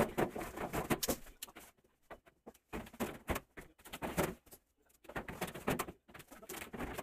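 Handling of a new stainless-steel trash can and its black plastic inner bucket: irregular knocks, scrapes and rattles of plastic against metal, in short bursts with brief pauses.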